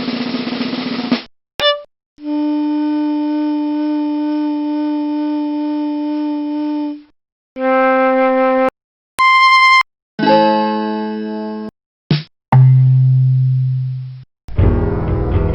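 A run of separate musical instrument samples, each cut off by a short silence: a brief drum-like rattle, a long steady held note, then several shorter pitched notes, one high and ringing and others that die away.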